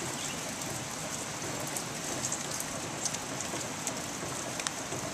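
Steady rain falling, with scattered drops ticking close by, over the roar of a rain-swollen stream.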